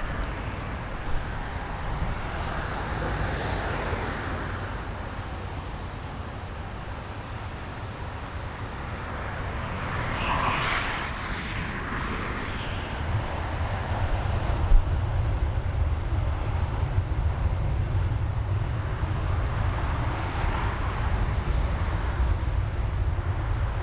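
Jet airliner engine noise that swells and fades, with a heavy low rumble of gusty wind on the microphone. The engine sound is loudest about halfway through, and the wind rumble strengthens in the second half.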